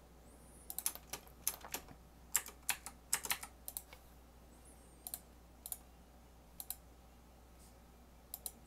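Computer keyboard keys pressed irregularly and faintly: a quick cluster of clicks over the first four seconds, then a few scattered presses.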